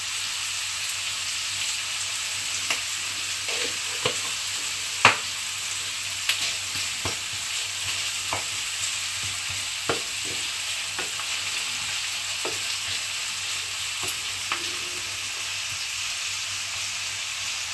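Diced onion sizzling steadily in olive oil in a frying pan over lowered heat, being softened (sweated), while a wooden spatula stirs it with scattered knocks and scrapes against the pan, the sharpest about five seconds in.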